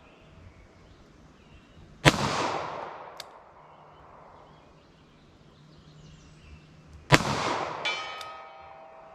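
Two revolver shots of heavy 213-grain .38 Special loads, about five seconds apart, each a sharp crack followed by about a second of echo dying away.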